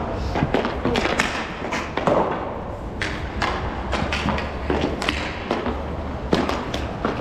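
Roller hockey play: repeated sharp clacks and thuds of sticks, puck and boards, scattered irregularly, over a steady low rumble of inline skates rolling on the rink floor.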